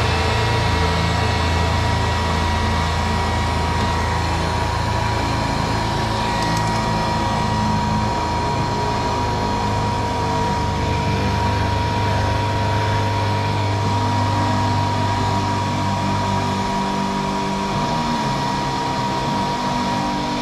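Heat gun running steadily, its blower giving a constant rushing noise with a steady whine, as it heats a piece to soften it for bending.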